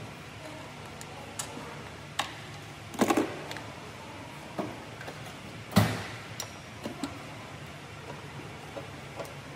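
Scattered metallic clicks and knocks of hand tools and parts being handled in a car's engine bay. A cluster comes about three seconds in and the sharpest knock just before six seconds, over a steady low hum.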